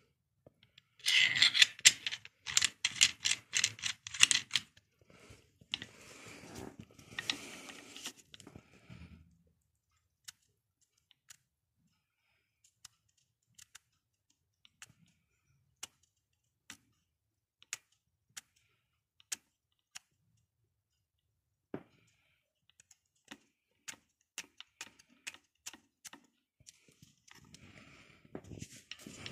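Clicking and rattling of the unpowered Sturm AG9012TES angle grinder's metal and plastic parts being handled as it is assembled: the flange nut, pin spanner and disc. A burst of rapid clicks and rattles for several seconds, then scattered single clicks, with more clattering near the end.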